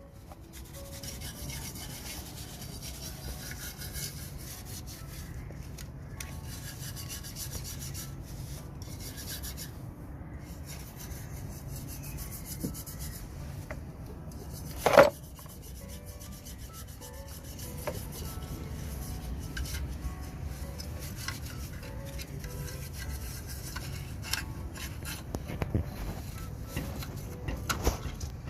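Steady abrasive rubbing and scraping on the rusted metal of a refrigerator compressor, as the corrosion is scrubbed off by hand. About halfway through there is one short, louder squeak.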